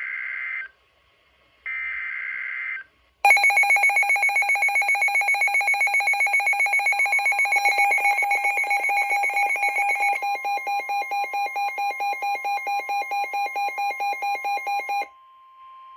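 NOAA weather radio alert for a severe thunderstorm warning: two short buzzy bursts of SAME digital header data, then about three seconds in the alert radios' electronic alarms start beeping rapidly, about four beeps a second. Partway through, the steady 1050 Hz warning tone comes up under the beeping, and near the end it sounds alone.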